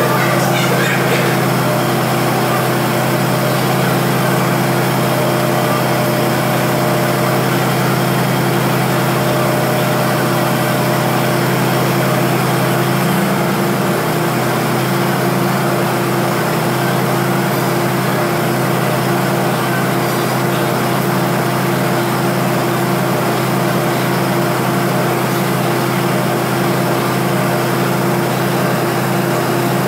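Diesel engine of a standing passenger train idling, a steady hum that takes on a regular throb about halfway through.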